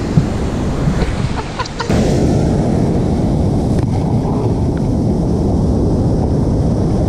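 Surf washing up a sandy shore with wind buffeting the microphone, a dense rushing noise that grows louder and steadier about two seconds in.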